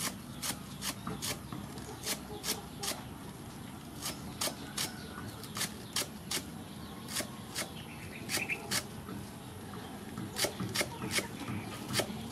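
Cleaver chopping green onions on a wooden chopping block: a string of sharp knocks, about two a second, with a brief pause a little after the middle.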